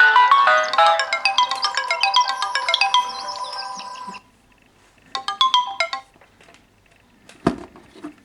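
Alarm tunes from three Samsung Galaxy phones (Galaxy S I9003, S2 Plus and S3) ringing at once, their melodies overlapping. They cut off suddenly about four seconds in. A brief snatch of tune sounds again about a second later, and a single knock comes near the end.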